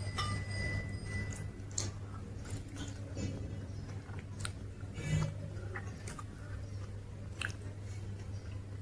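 Close-miked chewing and wet mouth sounds of a person eating dosa dipped in coconut chutney, with scattered short sharp clicks, over a steady low hum.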